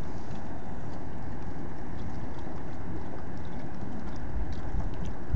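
Steady wind noise on the microphone, an even low rumble that does not let up.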